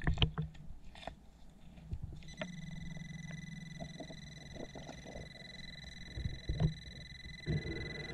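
Underwater metal detector sounding a steady high electronic tone that starts about two seconds in, signalling metal under the search coil. Before it, a few knocks and scrapes of the gloved hand against river rocks underwater.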